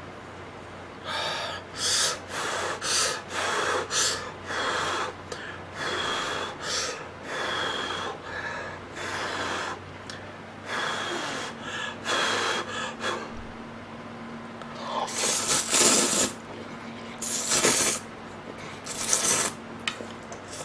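A person slurping thin instant ramen noodles and seaweed soup: a quick run of short slurps, then a few longer, louder slurps in the last few seconds.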